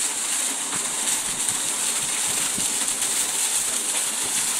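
A stream of water pouring from a pipe into the water of a well, splashing steadily.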